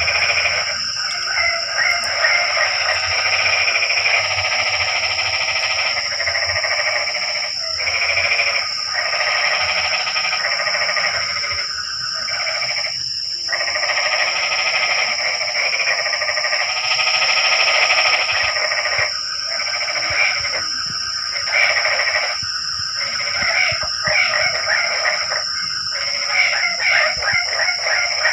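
A chorus of many frogs calling together, a dense pulsing din broken by several short lulls. A steady high-pitched whine runs underneath.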